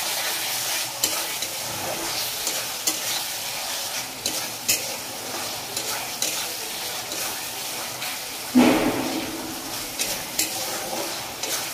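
Spatula stirring and scraping a thick masala with tomatoes and green chillies as it fries and sizzles in a pan, with many short clicks of the spatula against the pan. About two-thirds of the way in there is one brief, louder sound.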